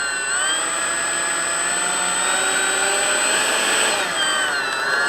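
Freewing F-86 Sabre's 80mm electric ducted fan running at part throttle for a taxi: a steady fan whine whose pitch eases up and dips briefly about four seconds in.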